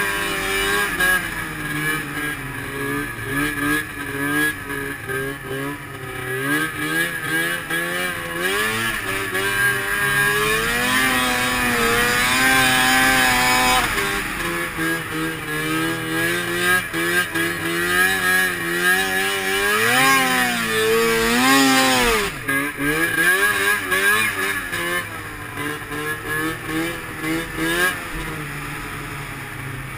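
Arctic Cat M7 snowmobile's two-stroke engine running under load in deep snow, its revs rising and falling as the throttle is worked. It has long high-rev pulls about midway and again about two-thirds through.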